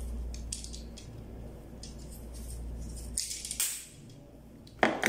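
Small metallic clicks and rattles from a hand tube cutter being worked around copper air-conditioner tubing. There is a short scrape a little past three seconds and a sharp knock near the end.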